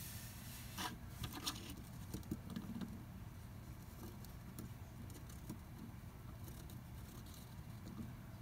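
Faint small clicks, rattles and scrapes over a steady low hum while the minifigure's stand is turned, busiest in the first few seconds.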